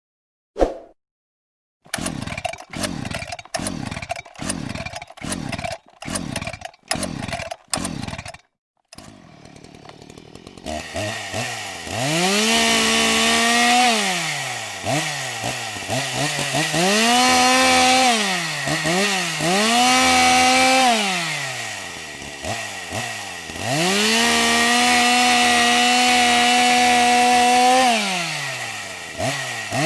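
Gas chainsaw being pull-started: about seven quick cord pulls, then the engine catches and idles low. From about 11 s it is revved up and held at high speed several times, the pitch rising and falling between revs.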